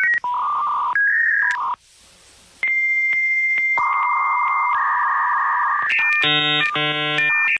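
A loud sequence of electronic beeps and steady tones that switch abruptly from one pitch to another, ending in two short buzzes.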